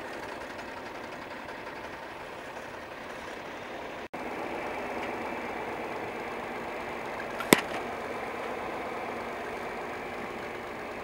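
John Deere 4020 tractor engine running steadily at low revs, with one sharp pop about seven and a half seconds in as the hay spear punctures an aluminium soda can.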